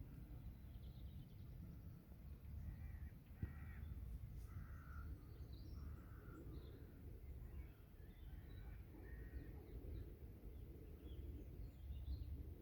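Birds calling at a pond: a run of short, harsh calls from a few seconds in until near the end, with faint higher chirps, over a low steady rumble.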